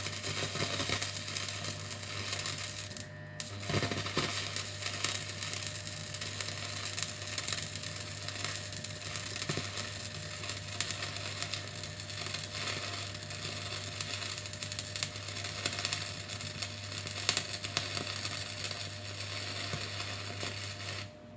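Stick (arc) welding: the arc crackles and sputters steadily over a low electrical hum from the welder, breaks off briefly about three seconds in, then runs on and stops near the end.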